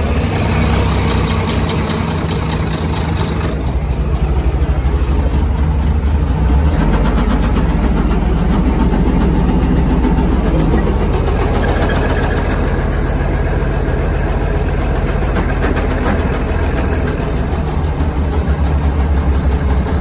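Komatsu WA180 wheel loader's diesel engine running steadily with rod knock, a sign of a failed connecting-rod bearing that the owner takes for the end of the engine.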